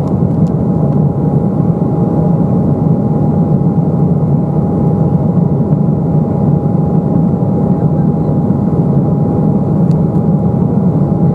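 Steady cabin noise inside an Embraer 195 airliner in flight: the even rush of its GE CF34 turbofan engines and the airflow, with one constant high tone running through it.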